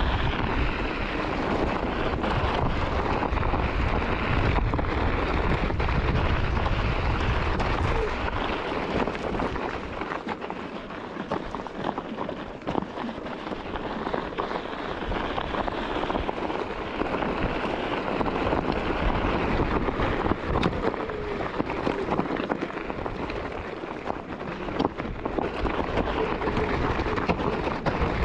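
Onewheel electric board rolling over a desert gravel trail: its tyre gives a steady crunching hiss scattered with small pebble clicks. Wind rumbles on the microphone, strongest for roughly the first eight seconds.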